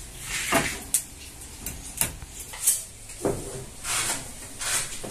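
Irregular knocks and short scraping clatter from hand work on wooden building parts, with a few sharp clicks among them.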